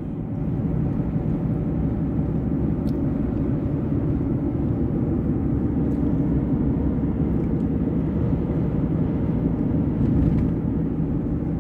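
Steady low rumble of a moving car heard from inside the cabin: tyre and engine noise at a constant road speed.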